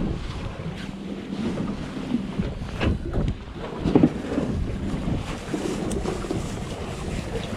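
Small fishing boat on the water, with wind buffeting the microphone over a steady low hum from the boat's motor. A few knocks come about three and four seconds in.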